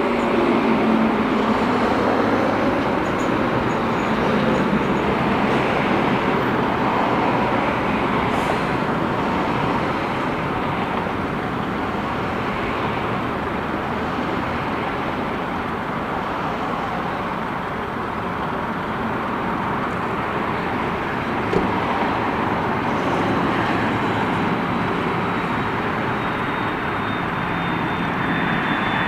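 Steady jet roar of an Airbus A330-202 airliner on approach, with a faint high engine whine that slowly falls in pitch near the end.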